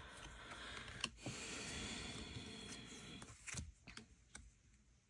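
Tarot cards being handled: a soft sliding rustle of cards for about three seconds, then a few light taps as cards are set down.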